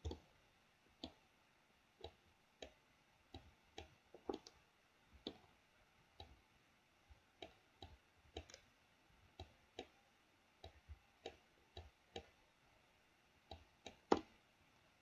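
Computer mouse buttons clicking, short sharp clicks at an irregular pace of about one to three a second, as sculpting strokes are made. The clicks are faint.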